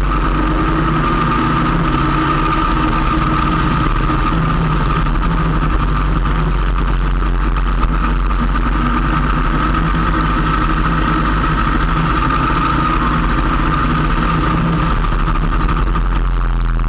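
Motorcycle engine running at a steady pace while riding, a constant drone mixed with road and wind noise, picked up by a camera mounted low on the bike.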